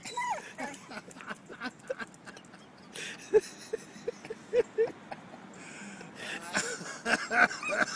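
Collie-type dog barking in short, high yaps, a run of about five at roughly two a second near the middle, as it bays at a bronze statue it treats as a stranger.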